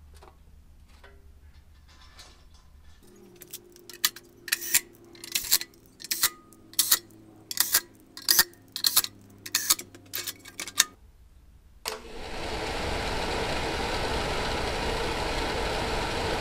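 A cordless drill driving screws into a sheet-metal fan housing in about a dozen short bursts. About twelve seconds in, the car heater blower motor starts and runs steadily, its fan pushing air through the housing.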